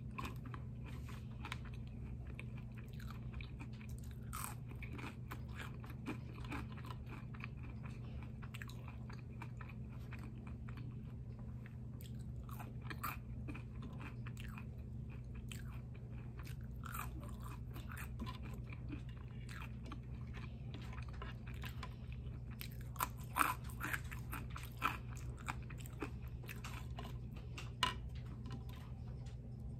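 Close-miked chewing and crunching of crispy curly fries: many small crisp crackles, with a few louder bites in the last third, over a steady low hum.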